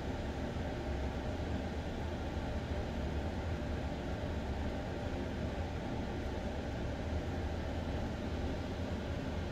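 A steady low rumble with a soft hiss over it, unchanging in level.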